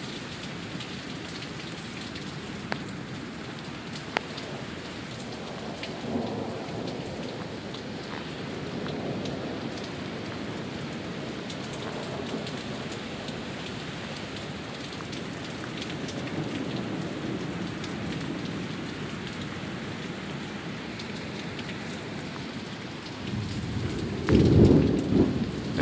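Heavy downpour: a steady hiss of rain pouring down on surfaces, with two sharp ticks a few seconds in. Near the end a loud low rumble of thunder rolls in and is the loudest sound.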